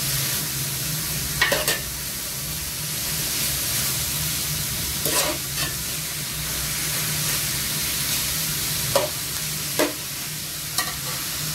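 Diced pork and onions sizzling as they sauté in oil in a large aluminium stockpot, with a metal spoon scraping and knocking against the pot a few times as they are stirred.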